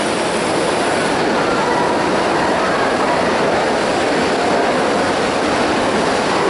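Steady din of a crowded indoor exhibition hall: many distant voices blended into one continuous noise, with no single sound standing out.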